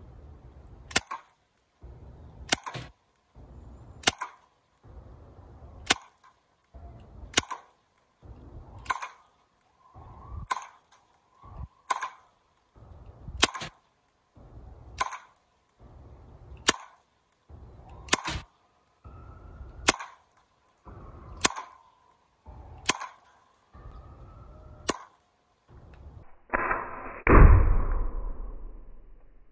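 Daisy Powerline 426 CO2 BB pistol firing, about sixteen sharp shots in an even string, one roughly every second and a half, as the magazine is emptied. Near the end comes a louder, duller noise lasting about two seconds.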